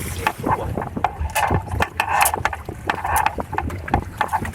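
Water slapping and splashing against the hulls of a Hobie Cat 16 sailing catamaran under way, in irregular knocks, over a low rumble of wind on the microphone.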